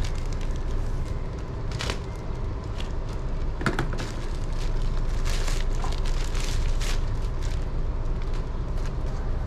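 A plastic courier mailer bag crinkling and tearing as it is opened by hand, in irregular crackles, over a steady low rumble.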